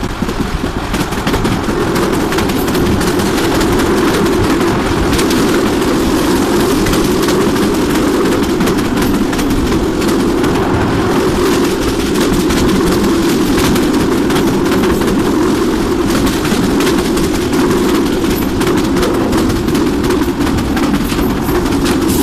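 Passenger train running at speed, heard at the carriage window: a steady loud rumble with dense, rapid clattering of the wheels on the rails.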